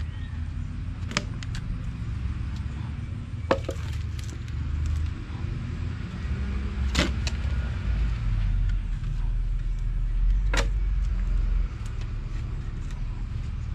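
Firewood logs knocking sharply a few times as they are laid into a copra dryer's firebox, over a steady low rumble that drops away near the end.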